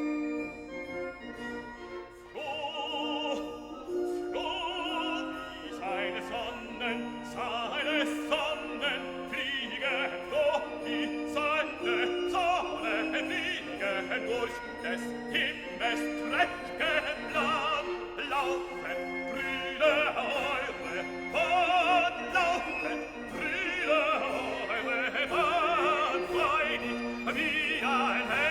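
Background music: an operatic classical piece with a singer's voice over orchestral accompaniment.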